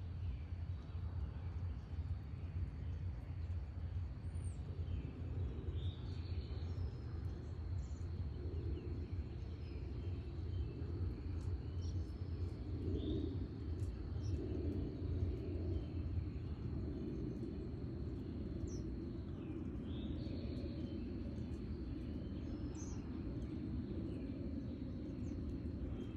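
Backyard birds give scattered short chirps and calls over a steady low outdoor rumble. A thin, steady high tone runs underneath and drops out briefly twice.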